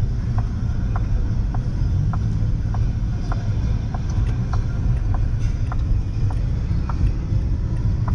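Road noise inside a moving car's cabin: a steady low rumble of tyres and engine at cruising speed. A light tick repeats evenly a little under twice a second.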